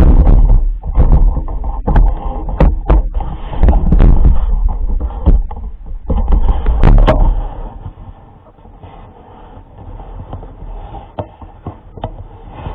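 Loud, low rumbling with repeated knocks and scrapes for about seven seconds, then a quieter rumble.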